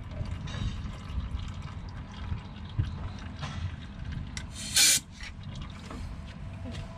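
Water splashing and trickling as a part from the truck's hydraulic oil tank is rinsed, over a steady low rumble. About five seconds in there is one short, loud hiss.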